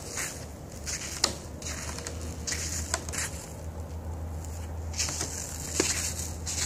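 Footsteps on frost-covered wooden decking: irregular soft scuffs with a couple of sharp clicks, over a low steady hum.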